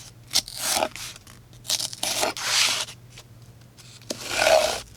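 A sharp M390 folding-knife blade slicing through material in a series of short cutting strokes, about five in all. One longer stroke comes in the middle, and the loudest comes near the end.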